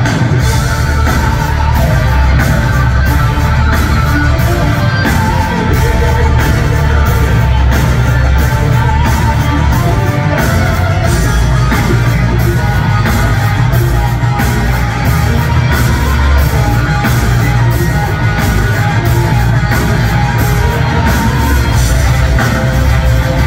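Live rock music, loud and dense with a heavy low end and a steady beat: electric guitar and drums with a string orchestra, heard from the audience in a large hall.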